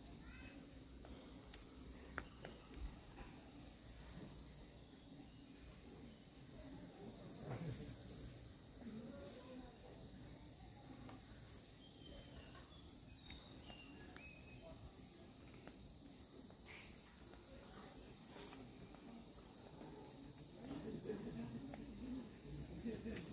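Faint, steady drone of insects in forest undergrowth, with a short high chirping call repeating every four or five seconds.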